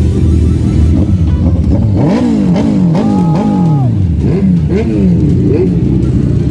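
Motorcycle engine running, then revved repeatedly about two seconds in: the pitch jumps up and falls back several times in quick succession. A short steady tone sounds over it about three seconds in.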